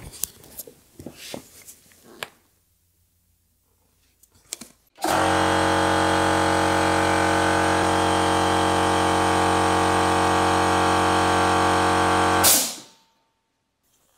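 Biltema portable piston air compressor starting suddenly about five seconds in and running very loud and steady, with a strong motor hum, then switching off near the end with a short burst of noise. A few clicks come first.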